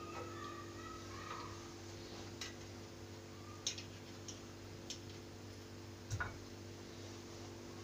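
Scattered light clicks and clinks of a steel cup, spoon and dishes being handled at a kitchen counter, over a steady low hum.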